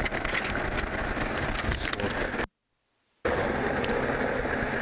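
Steady roadside traffic noise with a low rumble. It breaks off into silence for under a second about halfway through, then resumes.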